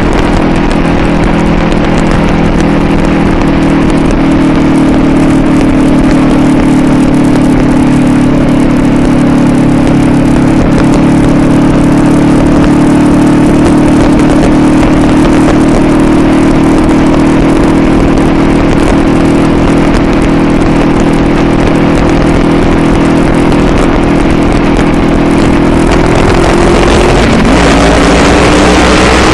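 2022 Honda CB500F's parallel-twin engine running at a steady cruise, with heavy wind and road noise on the chest-mounted microphone. Near the end the engine note dips and then climbs again.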